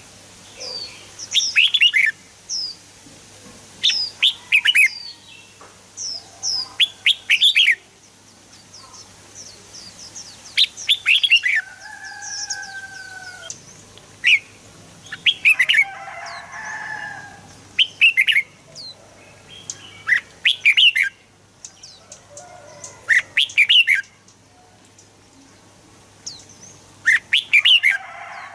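Red-whiskered bulbul singing: short, bright phrases of quick falling whistled notes, repeated every second or two. A few lower, softer warbled calls come in around the middle, over a faint steady hum.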